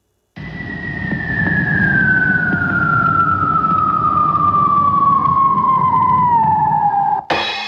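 A whistle sound effect, like a falling bomb, gliding steadily down in pitch for about seven seconds over a rumbling noise. Near the end it breaks off suddenly into a burst, and music begins.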